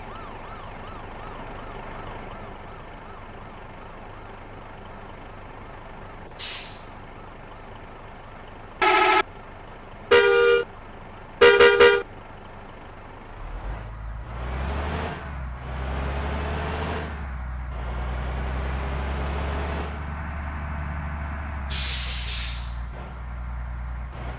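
Bus 'telolet' multi-tone horn sounding three loud short blasts about a second apart, the last two broken into quick changing notes. From about halfway on, a heavy bus engine runs and pulls by, with short sharp air-brake hisses before the horn and again near the end.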